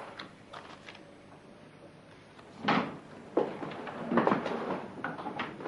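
A door being opened: quiet at first, then two clunks a little under halfway through, followed by a second or so of scraping noise.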